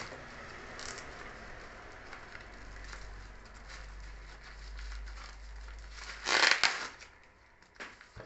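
Plastic packaging crinkling and rustling as it is unwrapped and handled, with a louder burst of crinkling about six and a half seconds in.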